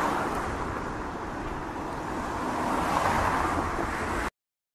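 Explosion fireball burning out after the blast, a steady rushing rumble that swells slightly about three seconds in, then cuts off suddenly to silence near the end.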